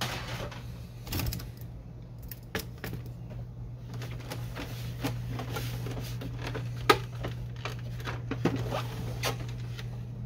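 Plastic clicks, knocks and rattles from the Canon Pixma MG5520 printer's housing as its scanner unit and top are handled and lifted, with one sharper knock about seven seconds in. A steady low hum runs underneath.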